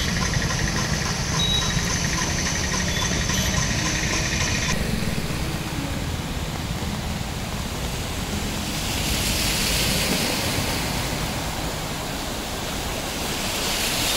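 Traffic on a flooded road: engines running and tyres churning through standing water, with a rushing splash of spray from about nine seconds in.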